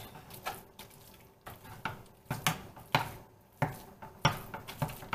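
Spatula knocking and scraping against a frying pan while breaking up raw ground pork, about two irregular knocks a second, with a soft wet squish between them.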